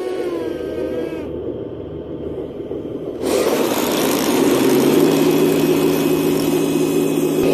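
Radio-controlled model tank's sound unit playing a simulated heavy-tank engine, its pitch rising and falling in the first second or so as the tank drives. About three seconds in it jumps to a louder, steadier running sound with a hiss over it.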